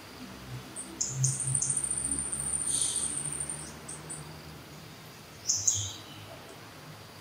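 Wild birds chirping in short, high calls, with a thin steady high whine lasting about two seconds from about a second in.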